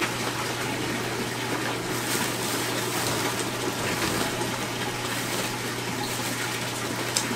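Steady rush of circulating water from running aquarium systems, over a constant low hum of their pump motors. Plastic bags crinkle briefly a few times as bagged livestock is handled.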